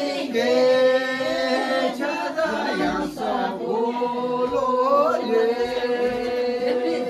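A group of men and women singing a traditional song together without instruments, holding long drawn-out notes.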